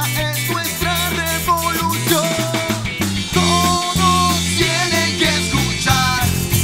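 Live band playing a song: electric guitar, bass guitar, drum kit and a horn section of saxophone and trombone, with a male lead singer.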